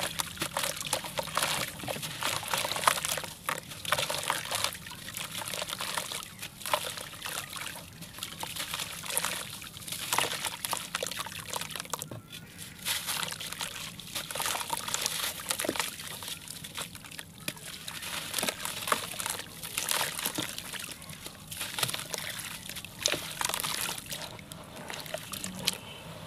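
Soaked sand-cement chunk crumbling in hands under water: dense gritty crackling of breaking cement, with water sloshing and trickling. There is a short lull about twelve seconds in.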